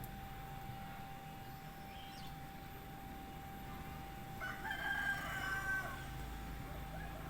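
A rooster crowing once, a drawn-out call of about a second and a half starting a little past the middle, over a steady faint hum; a single faint high chirp comes about two seconds in.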